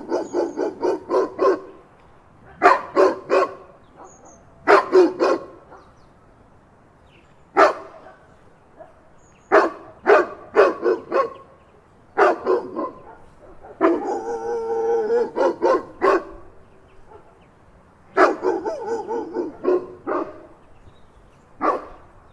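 Dog barks in repeated bursts of several quick barks, with short pauses between the bursts. About fourteen seconds in comes one longer, drawn-out call.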